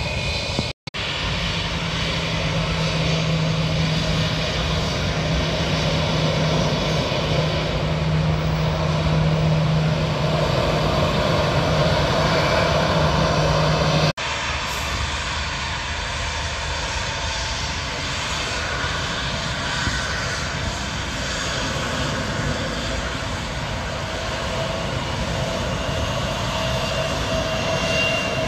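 Loud, steady airliner engine noise with a low hum through the first half. The sound drops out briefly about a second in and changes abruptly about halfway through.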